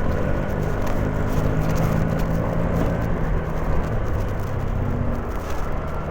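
Honda Genio motor scooter being ridden: steady engine drone with road noise.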